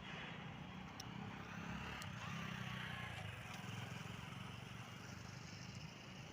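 Faint road traffic: a steady hum of vehicles, a little louder for a couple of seconds in the middle as one passes.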